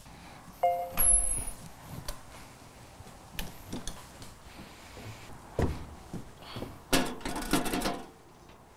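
Scattered knocks and clicks of a door and things being handled, with a brief pitched tone about half a second in. Near the end comes a denser rattle as a small metal mailbox's lid is opened and its contents taken out.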